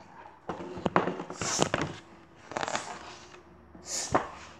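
Paper pages of a picture book being handled and turned: about three rustling sweeps of paper with knocks and bumps from the book being moved.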